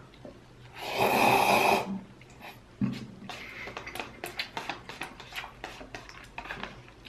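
Instant cup noodles slurped up off chopsticks in one loud airy pull lasting about a second, then close-miked chewing with many short wet mouth clicks.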